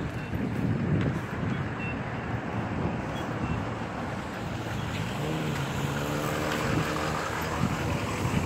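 Outdoor traffic noise with wind on the microphone; about five seconds in, an engine hum swells and rises slightly in pitch for a couple of seconds as a vehicle passes.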